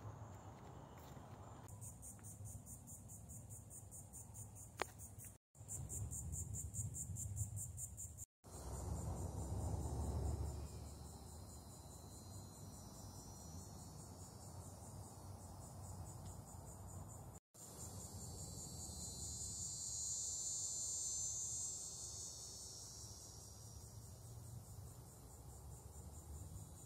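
Insect chorus in a swamp, a high-pitched trill that pulses rapidly at first, then runs steadier and swells for a few seconds past the middle. A low rumble runs underneath, and the sound cuts out briefly three times.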